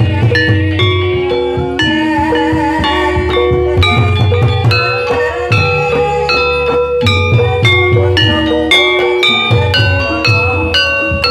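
Javanese gamelan music accompanying an ebeg horse dance: tuned mallet percussion plays quick, ringing melodic notes over hand-played kendang drum beats in a steady rhythm.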